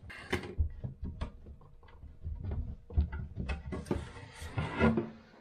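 A loose wooden floor panel being handled and shifted, with scattered light knocks, clicks and scrapes of wood against wood.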